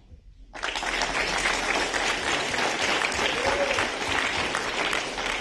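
Audience applauding. The applause breaks out suddenly about half a second in and then holds steady.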